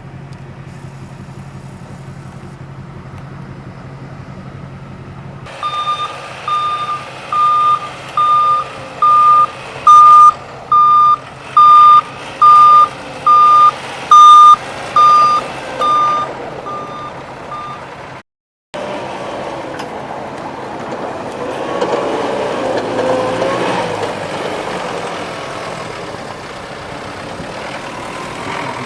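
Vehicle backup alarm beeping a little faster than once a second, about fourteen loud high beeps, over a running engine, then stopping. Before it a steady engine hum runs; after a brief cut an engine runs with a rougher, noisier rumble.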